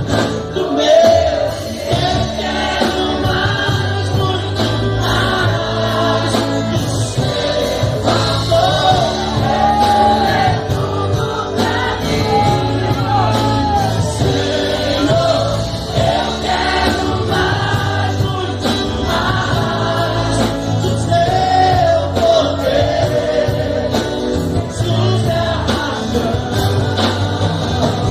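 Christian worship song performed live: a sung melody with acoustic guitar accompaniment, with other voices possibly blending in the choir-like texture.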